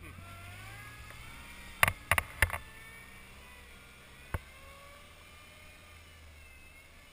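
Suzuki Jimny's small engine running under load in snow, a low steady hum with a faint whine that glides up and down. A few sharp knocks about two seconds in, and one more a couple of seconds later.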